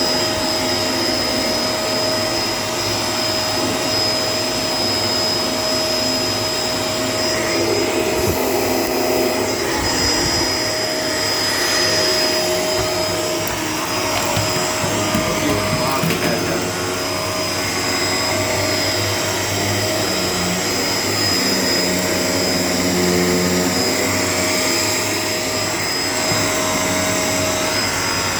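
Shark LA702 Lift-Away upright vacuum cleaner running continuously while vacuuming with its power head: a steady rush of air with a high motor whine held at one pitch.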